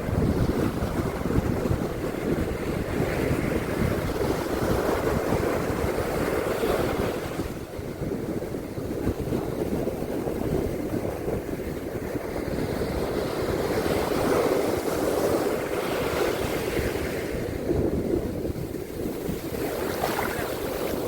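Ocean surf washing onto a beach, swelling and easing over several seconds, with wind buffeting the microphone.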